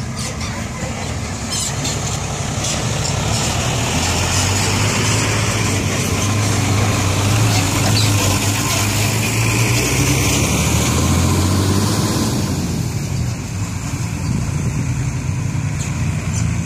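Diesel engines of heavy tipper trucks (an Isuzu, then a Hino) driving slowly along a dirt track. The engine sound swells as one truck passes close by around the middle, eases off, then rises again as the next truck approaches near the end.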